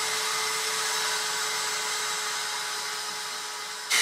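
Steady whirring of a small motor with a constant hum, which jumps suddenly louder just before the end.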